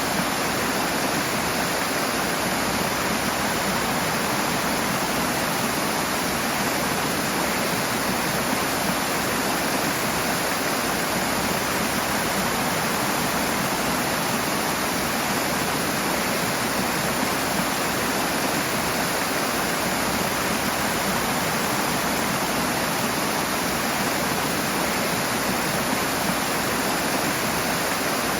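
Rushing water: a fast stream or small waterfall pouring steadily, a dense, unchanging hiss.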